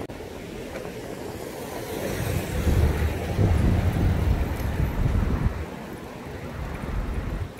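Street traffic: a vehicle passes, its rumble swelling about two seconds in and fading out by five and a half seconds, over low wind rumble on the microphone.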